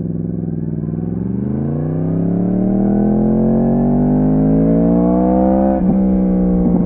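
Yamaha R1 crossplane inline-four pulling away and accelerating, its engine note rising steadily in pitch for about five seconds. The note is briefly interrupted about six seconds in, and again just before the end.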